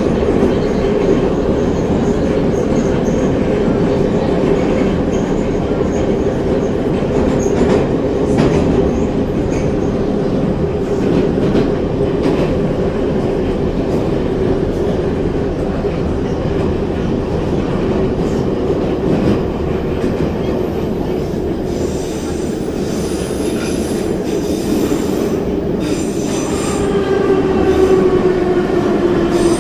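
Moscow Metro train running through a tunnel, heard from inside the car: a steady loud rumble of wheels on rails with a constant hum. Near the end a whine falls in pitch as the train begins to slow.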